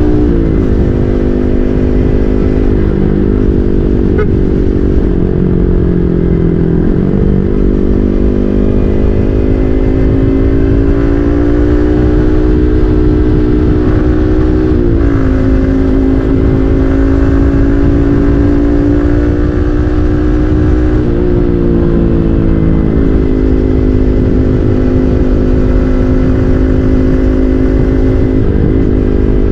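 Yamaha MT-15's single-cylinder engine running through an SC Project full-system aftermarket exhaust while riding, its note climbing slowly and dipping briefly about five times. Under it is a steady rush of wind and road noise.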